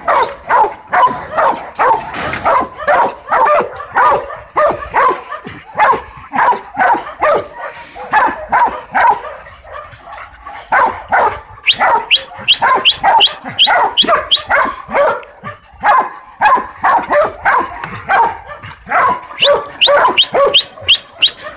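Young hog dogs barking without pause, baying a hog in a pen, several barks a second. There is a short lull about halfway through, then the barks turn into sharper, higher-pitched yips.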